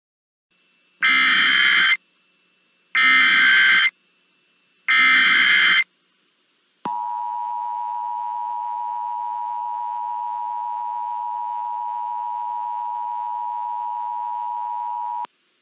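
Emergency Alert System test: three short bursts of data tones (the SAME header) about a second apart, then the long steady two-tone attention signal, which cuts off suddenly near the end.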